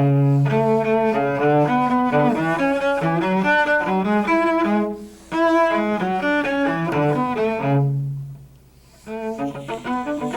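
Cello playing a scale passage in double stops on two neighbouring strings, as an example of bowing thirds and sixths. It comes in three phrases, with a brief break about five seconds in and a longer one near eight seconds.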